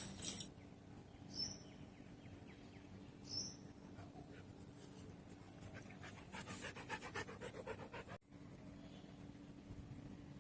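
Siberian husky panting quickly and rhythmically, clearest past the middle. Two short high chirps sound earlier, about two seconds apart.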